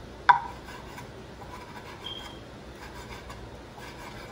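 Kitchen knife dicing raw bacon on a wooden cutting board: one sharp knock with a short ring about a third of a second in, then a run of faint, repeated taps of the blade on the board.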